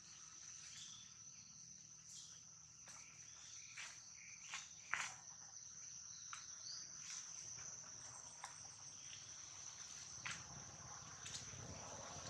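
Insects droning steadily at one high pitch, with scattered faint clicks, the sharpest about five seconds in.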